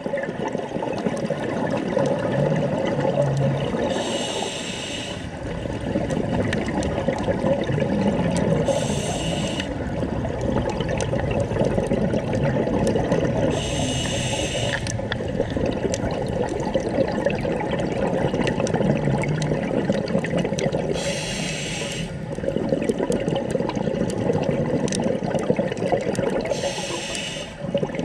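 Scuba diver breathing through a regulator underwater: five short hisses a few seconds apart, over a steady rush of bubbling water.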